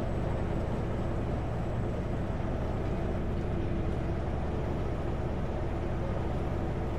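Steady engine drone and road noise of a Kenworth W900L semi-truck cruising on the highway, heard from inside the cab.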